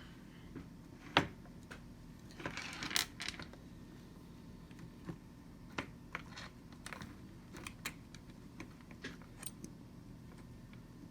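Small hard parts of a Robot Coupe MP 600 stick blender clicking and clinking as they are handled and fitted back in place during reassembly. A sharp click comes about a second in and a brief rattle about two and a half seconds in, then scattered light taps.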